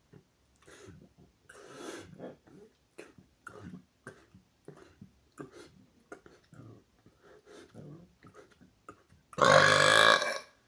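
A man's loud, deliberate burp starting about nine seconds in and lasting about a second. It cuts off abruptly, which he takes for a failed burp. Before it comes a string of faint, short sounds.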